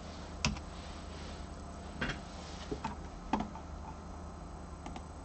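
A handful of separate keyboard key presses, about five short clicks spread over the few seconds, the sharpest about half a second in, over the steady hum of a running desktop PC.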